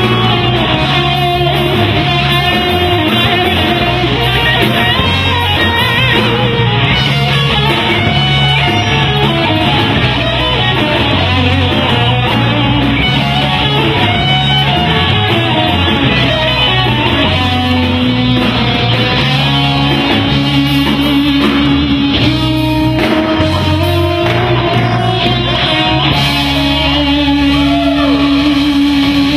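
Rock music led by electric guitar over a moving bass line, with long held lead-guitar notes near the end.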